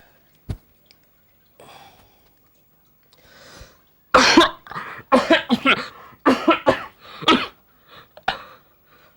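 A person coughing: a couple of faint throat sounds, then from about four seconds in a fit of loud, repeated coughs in several bursts.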